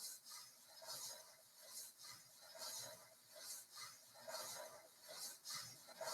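Faint rhythmic swishing, about one stroke a second, from a pretend skiing motion.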